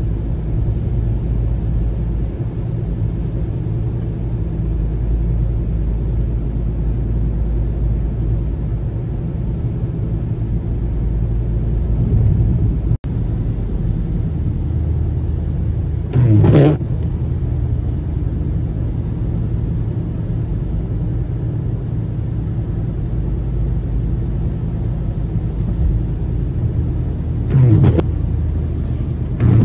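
Steady in-cabin rumble of a car driving on a wet road: engine and tyre noise. Windshield wipers swish across the glass once about halfway through and twice near the end.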